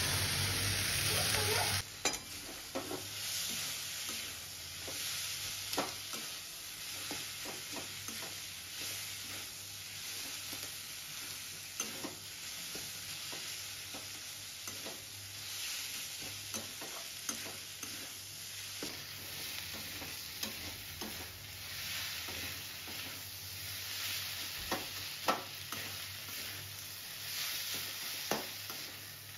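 A steel spatula stirring and scraping through hilsa fish head, potatoes, onions and rice frying in a kadai on low-to-medium flame: a steady sizzle with irregular clicks and scrapes of the spatula against the pan. It is louder for about the first two seconds.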